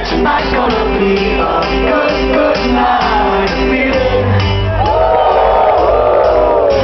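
Dance music with a steady beat played loud through a festival sound system, with a crowd shouting and singing along; a heavy bass comes in about four seconds in, and many voices swell together about a second later.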